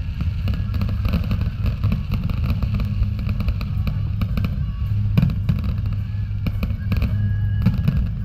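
Fireworks bursting and crackling in quick succession, with a few louder bangs in the second half, over loud music.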